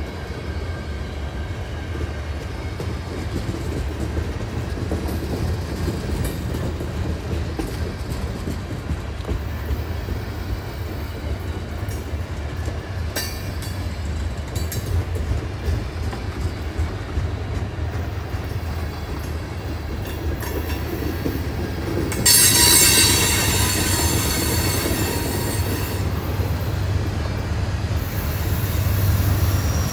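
A CN freight train's cars rolling past with a steady low rumble of wheels on rail. About 22 seconds in, a loud, high-pitched wheel squeal sets in for about four seconds, with fainter squealing again near the end.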